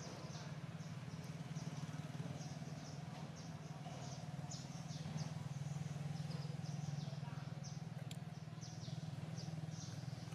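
Outdoor ambience: short, high chirps repeating a few times a second over a steady low hum.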